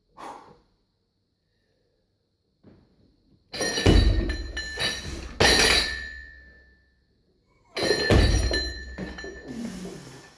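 Loaded Olympic barbell with bumper plates clanking through two lifts: each starts with a heavy thump, then the plates and collars rattle and clink with a metallic ring as the bar is pulled up and caught at the shoulders.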